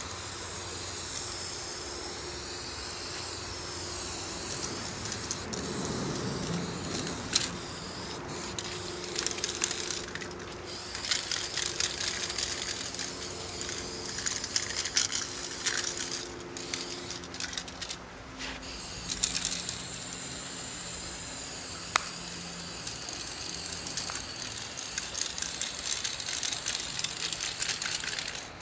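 Aerosol spray-paint can hissing in long bursts with short breaks between, as paint is sprayed onto a wall, with a few sharp clicks.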